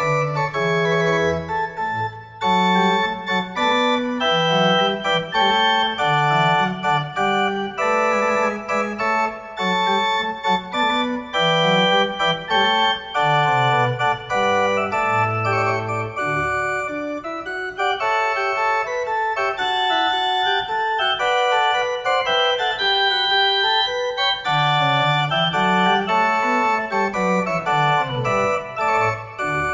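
Small wooden chamber organ with exposed pipes playing a piece in several parts: held upper notes over a bass line that moves up and down.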